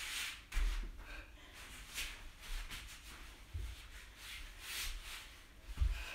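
A person doing kicks from the floor on an exercise mat: short breaths and rustling of movement, with a few dull thumps of the body and feet on the mat, the loudest near the end.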